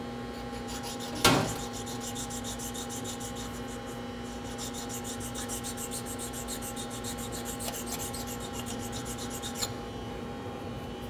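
A sharpening stone rubbed back and forth by hand on the steel fixed jaw of a mill vise, a rhythmic scraping of quick strokes, stoning off the raised crown of metal around a ding. A sharp knock comes about a second in, and the strokes stop near the end, over a steady machine hum.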